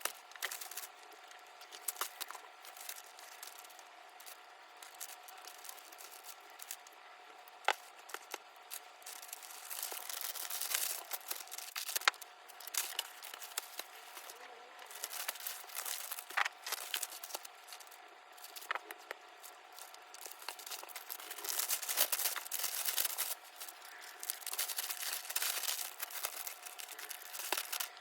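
Packing materials being handled: irregular crinkling, rustling and tearing, with scattered sharp clicks and taps and a few louder stretches of rustling. A faint steady hum sits underneath.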